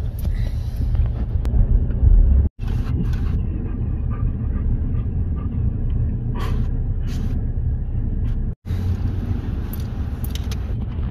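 A car on the move: a steady low road-and-engine rumble, broken twice by a split-second silent gap.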